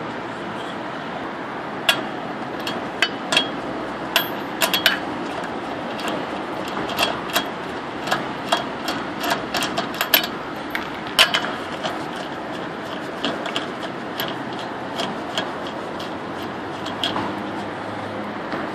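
Wheel nuts being spun off the studs of a steel car wheel by hand, giving irregular small metallic clicks and clinks over a steady background noise.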